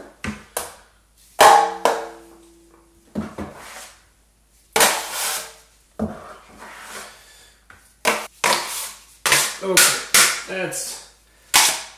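Metal taping knife scooping drywall joint compound from a bucket and scraping it off against a stainless-steel mud pan: a series of sharp scrapes and clacks. An early knock makes the pan ring briefly.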